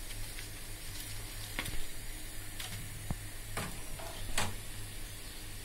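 Hot cooking oil sizzling in a pan as fried chili pakoras are lifted out with a slotted metal spoon, over a steady low hum. Several short, light clicks and knocks sound along the way.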